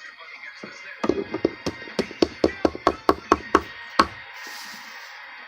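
A quick run of sharp taps, about four or five a second for some two and a half seconds, then one last louder tap: a teaspoon knocking against a container while borax powder is scooped and measured out.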